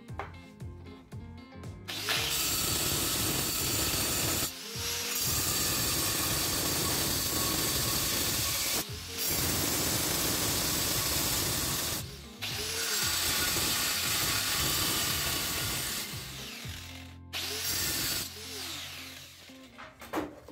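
Angle grinder with a diamond cutoff wheel cutting through steel angle iron in several long passes, starting about two seconds in, with short breaks where the wheel comes off the cut; it stops a few seconds before the end after a last short burst.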